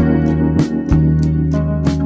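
Instrumental background music with a steady beat over held bass notes.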